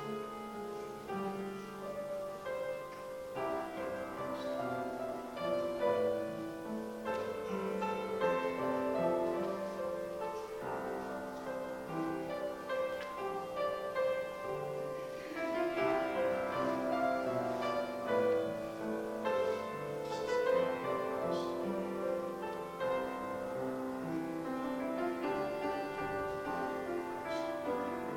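Instrumental piano music, with sustained notes and chords.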